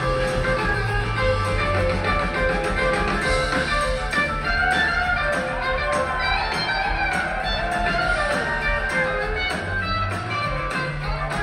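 Live rock band playing an instrumental jam with electric guitars, bass, drums and keyboards. A lead line with sliding, bending notes comes through around the middle.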